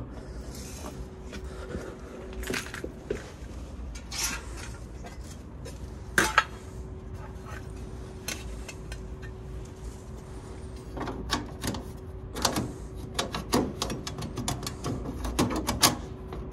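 Sheet-metal covers of an air-conditioner outdoor unit being handled and fitted back on: scattered clanks and clicks, with a sharp knock about six seconds in and a busier run of clatter in the last few seconds.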